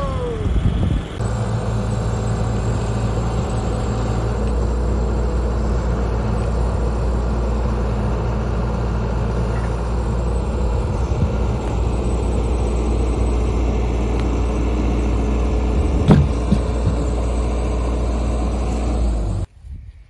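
CAT 311 hydraulic excavator's diesel engine running steadily under load as the machine lifts a log on a chain. A short falling squeal comes at the very start and a single sharp knock about sixteen seconds in. The engine sound cuts off abruptly shortly before the end.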